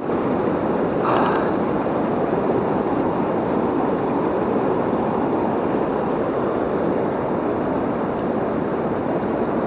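Fast river current rushing over rocks, a steady, even noise.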